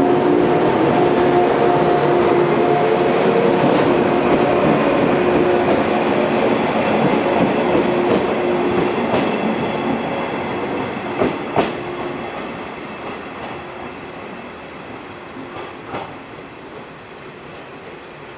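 Yellow 115-series electric multiple unit pulling out of a station. Its traction motors hum and rise in pitch as it gathers speed. A few wheel clacks over rail joints come past the middle, and the sound fades steadily as the train moves away.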